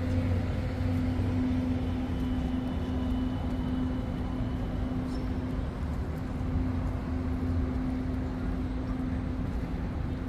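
Street traffic with a steady low engine hum, as of a vehicle running close by, over general city noise.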